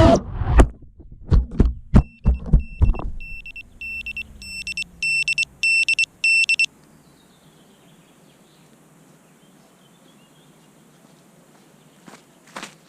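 A run of sharp knocks, then an FPV quadcopter's buzzer beeping in fast, high bursts for about three and a half seconds, growing louder before it stops abruptly. A faint hiss follows.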